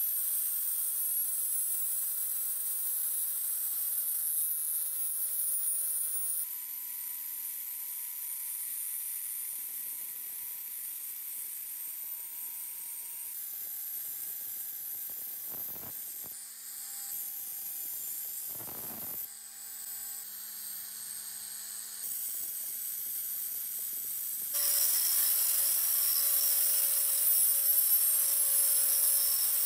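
Electric angle grinder with an abrasive disc grinding rust off a steel knife blade: a steady motor whine over a high hiss of the disc on the metal. Its pitch and loudness jump abruptly several times; it is quieter in the middle and loudest near the end.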